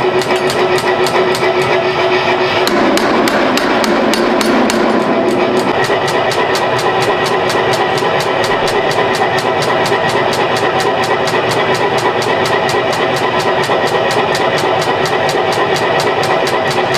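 Rapid, evenly spaced hammer blows on steel, about five a second, going on without a break.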